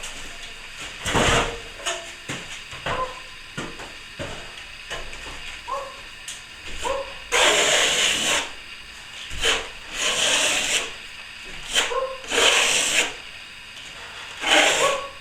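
Plastering hand tools scraping and rubbing over plaster in about five strokes, the longest about a second, with light clicks and taps between them.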